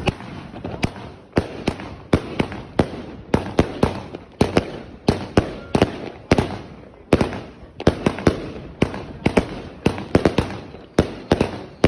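Alpha Fireworks 'Meltdown' fan-shaped firework cake firing shot after shot: a rapid, irregular string of sharp bangs, about three a second.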